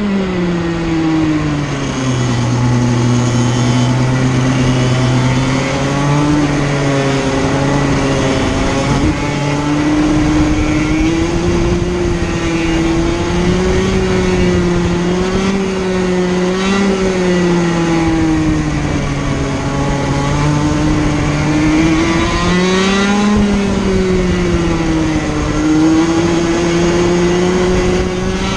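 Onboard sound of a Sirio TT85 100cc two-stroke kart engine racing, its revs rising and falling over and over as the kart slows for corners and accelerates out of them. The revs drop over the first couple of seconds, stay low for a few seconds, then climb steeply twice, about halfway through and again near the end.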